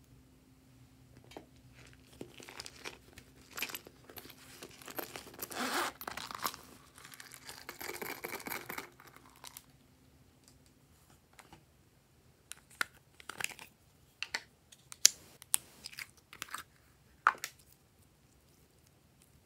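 Dry rustling and crinkling as red glitter and star sequins are shaken into a glass dish, lasting several seconds. Then a run of separate sharp clicks and taps, the loudest sounds here, with the last a little after halfway through the second half.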